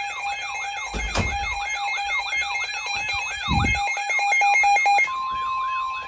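Electronic emergency alert tones sounding together: a siren-like wail sweeping up and down about three times a second over a steady tone, which jumps to a higher pitch near the end. Two dull knocks, about a second in and halfway through.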